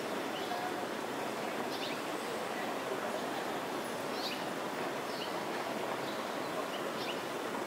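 Outdoor street ambience: a steady background hum with scattered short bird chirps every second or so.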